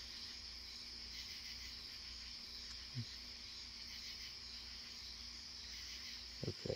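Faint steady high-pitched chirring of night insects. There is a soft low knock about three seconds in and a few low handling clicks at the end.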